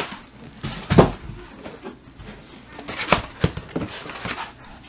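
Foam packing pads being pulled off and set down around a 3D printer: a loud thump about a second in, then rustling and a few sharp knocks.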